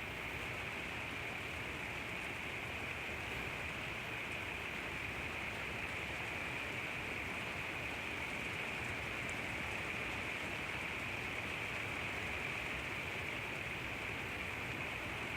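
Steady rain falling, an even hiss of drops with no break or change.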